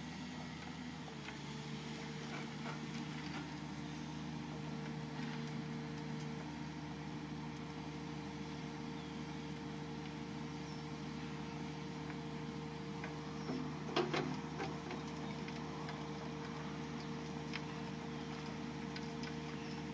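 Komatsu PC200 excavator's diesel engine running steadily while its rotary screening bucket turns, sifting soil. Scattered light ticks throughout, with a short cluster of louder knocks about two-thirds of the way through.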